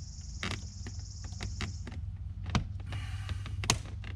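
Sharp clicks and rustling of parts being handled and pressed into place, as a shifter boot is fitted, over a steady low hum; two clicks stand out, the louder one near the end.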